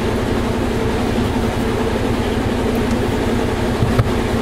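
Washing machine running with a steady low drone and hum, with one light knock near the end.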